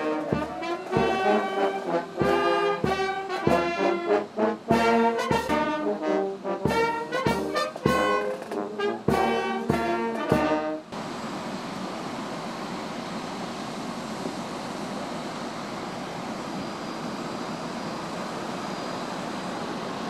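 Military brass band playing an anthem, trombones and trumpets to the fore, which stops abruptly about eleven seconds in. A steady rushing noise is left for the rest.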